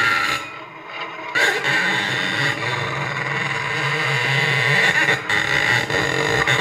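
A bowed string on an invented instrument with a large wooden horn resonator, giving a rough, sustained tone rich in overtones. It drops away briefly about half a second in, then comes back and carries on.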